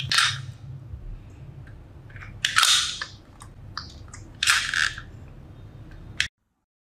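Plastic toy gun going off three times, short sharp bursts about two seconds apart, with a few small clicks between. The sound cuts off suddenly near the end.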